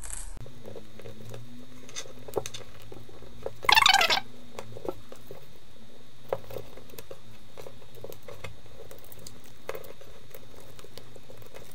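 Hands handling felt, velcro and steel dressmaker's pins on a tabletop: scattered faint clicks of pins being set down, and one short loud rasping rustle about four seconds in, over a steady low hum.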